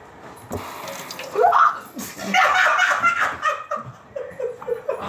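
Water running from a kitchen sink faucet, with a person laughing over it.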